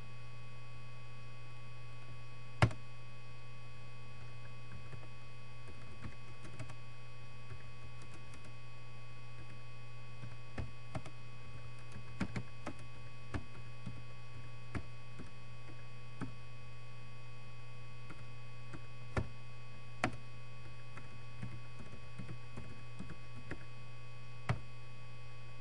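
Computer keyboard typing: sparse, irregular keystrokes over a steady electrical hum. One louder click comes about two and a half seconds in.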